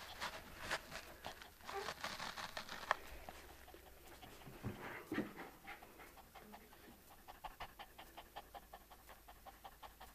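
Small dogs panting rapidly in quick, even breaths, about four or five a second, as they sniff at a newborn baby.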